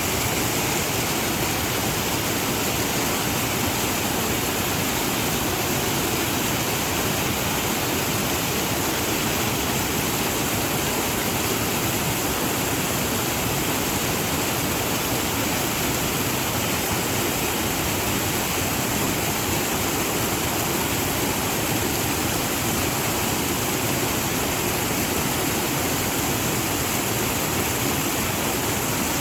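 Waterfall: water pouring and splashing in a steady, unbroken rush that does not change.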